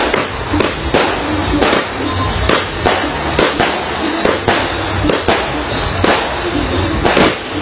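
Aerial fireworks exploding in an irregular run of sharp bangs, about one or two a second, with music playing underneath.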